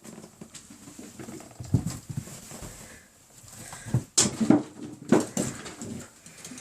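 A puppy playing fetch indoors: its paws scamper on the floor, with several knocks and short bumps. The sharpest knock comes about four seconds in.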